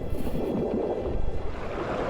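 Low, steady churning rush of moving water, with no distinct events.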